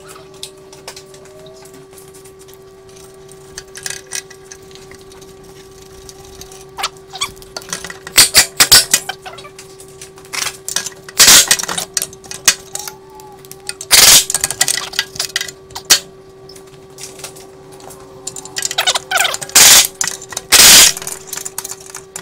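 Hand tools clinking and knocking on metal under a car during exhaust work: scattered sharp knocks, the loudest grouped around the middle and near the end, over a steady faint hum.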